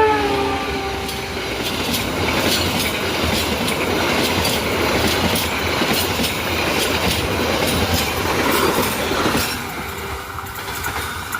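A train passing at speed over a level crossing: the tail of its horn drops in pitch as it goes by, then a loud rush of wheels on rail with a rapid clickety-clack over the rail joints, easing off about nine and a half seconds in.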